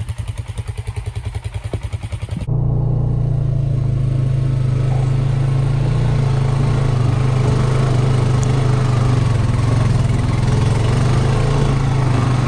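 ATV engine idling with a rapid, even pulse; after a cut about two seconds in it runs steadily and louder as the ATV is ridden.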